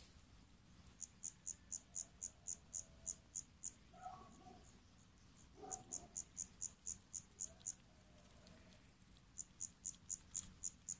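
A cricket chirping in evenly spaced, high-pitched pulses, about four a second, in runs of two to three seconds with short pauses between them.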